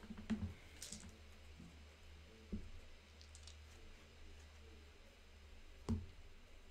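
Faint taps and clicks of playing cards and game pieces handled on a tabletop, with a light rustle about a second in and sharper knocks about 2.5 s and 6 s in.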